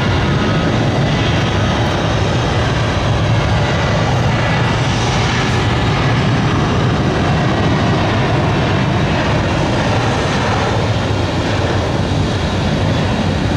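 Jet airliner's engines running at high power on the runway: steady, loud, even engine noise with a heavy low rumble.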